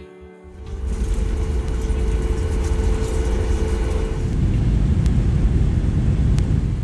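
Jet airliner heard from inside the cabin: a loud, steady low rumble of engines and airflow, with a steady whine over it that stops about four seconds in.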